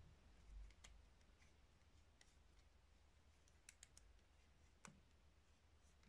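Near silence with a handful of faint, scattered clicks from a plastic 3x3 Rubik's cube being handled and turned over in the hands.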